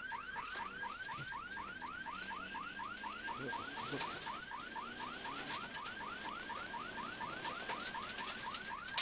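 Electronic warning siren on a rally course car, sounding a rapid repeating yelp of rising sweeps, about five a second.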